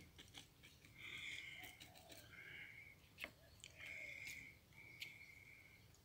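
Faint bird calls outside, four short separate calls, with a few light clicks between them.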